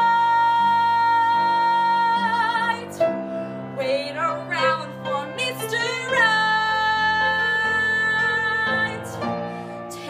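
A woman singing a slow musical-theatre ballad solo with piano accompaniment. She holds one long high note for the first three seconds or so, wavering into vibrato at its end, and holds another from about six seconds in until about nine.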